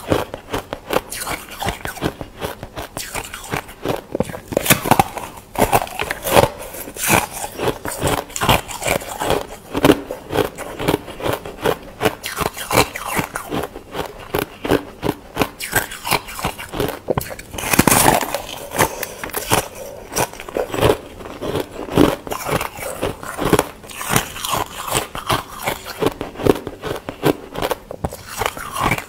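Close-up crunching of a block of freezer frost being bitten and chewed: rapid, dense crackling crunches with one louder bite around the middle.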